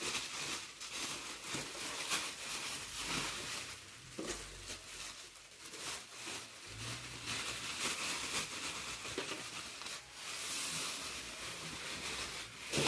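Plastic bubble wrap crinkling and rustling as it is pulled off and handled, with an uneven crackle of small clicks.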